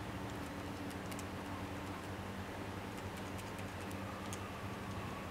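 Faint scattered clicks from a tablet on a magnetic phone holder being handled and moved about, over a steady low hum.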